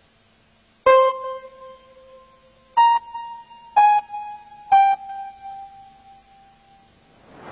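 Four struck electric-piano-like chime notes, one after another with the last three about a second apart. Each rings out and fades slowly, and the last three step slightly lower in pitch. They are countdown stings, one note per number.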